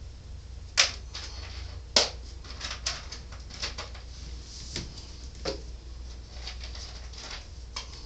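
Raccoon pelt being pulled down over a wooden fur stretcher board: two sharp knocks about one and two seconds in, then a run of lighter clicks and brief scrapes of gloved hands, fur and board.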